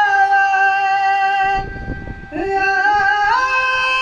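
A man singing long, high held notes. About two seconds in he breaks off briefly for breath, then steps up to a higher held note.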